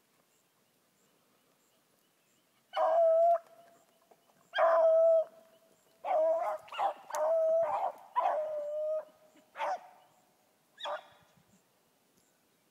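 Rabbit-hunting hound baying: about eight drawn-out, howling bawls in quick succession, starting about three seconds in, the voice of a hound running a rabbit's trail.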